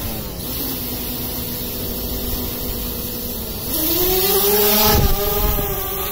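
DJI Spark quadcopter's four propellers spinning with a steady hum while it rests on a palm, then a rising whine as the motors spin up and it lifts off the hand, settling into a steady, higher hover hum. A short thump comes about five seconds in.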